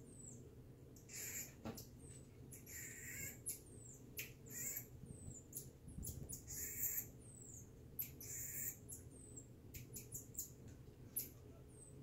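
Marmoset giving a scattered string of short, high-pitched chirps and squeaky calls.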